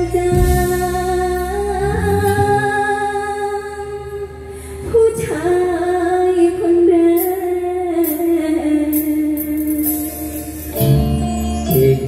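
Mor lam singing through the PA: a young woman holds long, wavering sung notes in two drawn-out phrases. The backing band's heavy bass comes back in loudly near the end.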